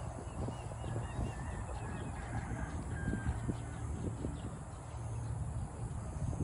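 Wind buffeting the microphone, with birds calling: a quick run of repeated high chirps in the first two seconds and a short whistled note soon after.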